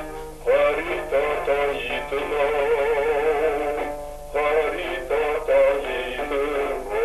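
A solo singer performing a slow song with strong vibrato, in sung phrases with a short break about four seconds in.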